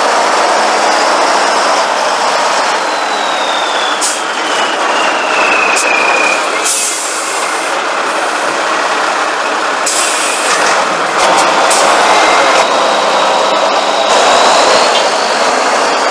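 Tatra 815 trial truck's diesel engine working hard under load as it crawls through deep mud, with a thin high whine that falls in pitch a few seconds in and climbs again in the second half.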